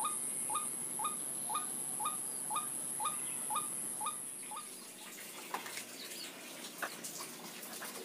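White-breasted waterhen (ruak-ruak) giving its monotonous call: a short rising note repeated about twice a second, over a steady high-pitched buzz. Both stop about four to five seconds in, leaving light clicks and rustling.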